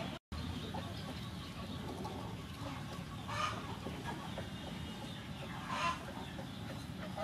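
Chickens clucking in the background, with two short calls about three and a half and six seconds in, over a steady low background noise.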